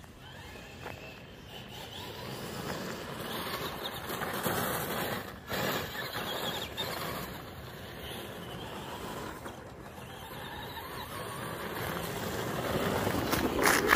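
Traxxas Bigfoot RC monster truck driving over loose gravel: its brushed electric motor whirring and its tyres crunching, swelling and fading as it speeds up and slows, and loudest near the end.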